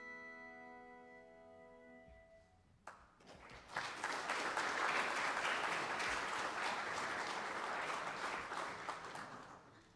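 The last held chord of a piece of music rings and fades over the first two seconds or so. Then the audience applauds from about three seconds in, dying away near the end.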